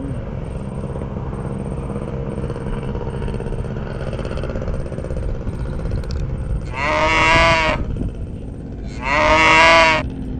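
A cow mooing twice, two long calls of about a second each, the second near the end, over a steady low background rumble.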